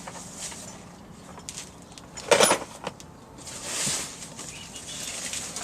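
Rummaging through a shed of stored minibike parts: scattered small clicks and knocks, one loud clatter about two and a half seconds in, and a scraping rustle a second later as things are shifted.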